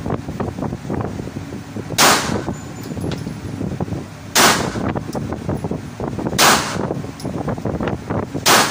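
Handgun fired four times at an indoor range, single shots spaced about two seconds apart.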